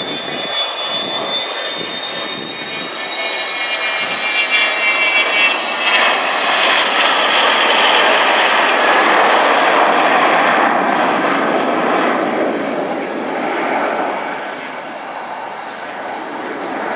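Dassault Falcon 900's three turbofan jet engines as the aircraft passes low overhead: a rushing jet noise with a high-pitched whine, building to its loudest about halfway through and then easing off as it banks away.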